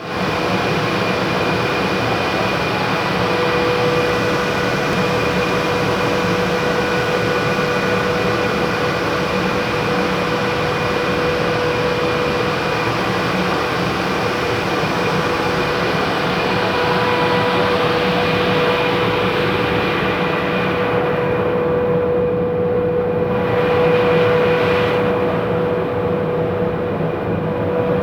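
Small electric mini blower running steadily, a whirring rush of air over a steady motor whine. Near the end the airy hiss thins out, with a brief swell, while the whine carries on.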